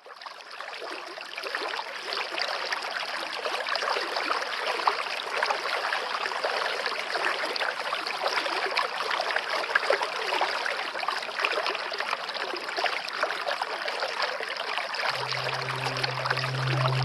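Waterfall water rushing and splashing in a steady, even stream of noise that fades in over the first couple of seconds. Near the end a low steady tone comes in underneath it: background music starting.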